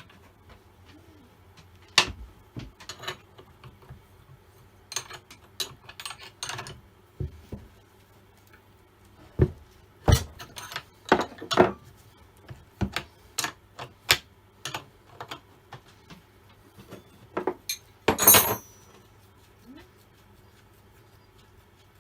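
Tools and metal parts of an old Stihl 08S chainsaw clicking, knocking and clattering as it is taken apart by hand. The knocks come irregularly, with a short rattle or scrape near the end.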